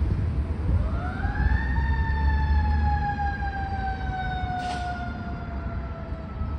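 Fire truck's mechanical siren winding up once, then coasting slowly down in pitch, over a steady low rumble. A short hiss comes about halfway through.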